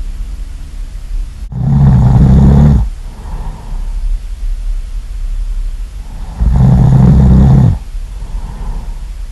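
Loud human snoring: two long snores, about a second each, one starting a second and a half in and another about two-thirds of the way through, with softer breaths between over a low steady hum.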